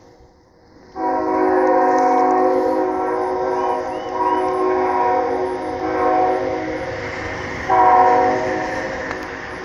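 Air horn of an approaching CSX ET44AH diesel locomotive sounding a long blast that starts about a second in, then a louder short blast about eight seconds in.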